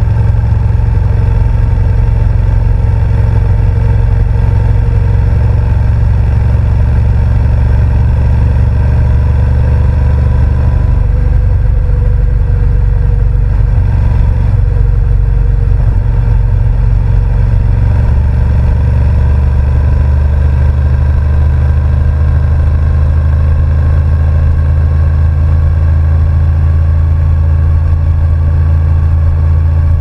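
Honda NC750X's parallel-twin engine running steadily while the motorcycle is ridden along the road, heard from the rider's seat. Its note shifts slightly about eleven seconds in and again about eighteen seconds in.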